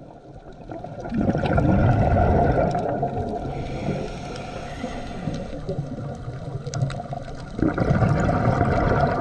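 Underwater sound of a scuba diver's exhaled bubbles bubbling past the camera in two surges, one about a second in and another near the end, with quieter water noise between.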